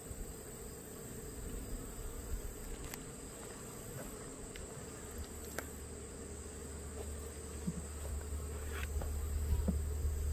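Honeybees buzzing around an open Langstroth hive: a steady hum, with a few light clicks and a low rumble that swells from about halfway.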